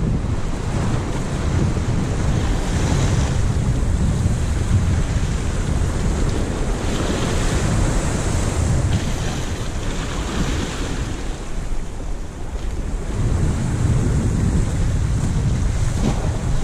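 Sea surf washing and breaking over rocks, swelling and easing a few times, with strong wind buffeting the microphone.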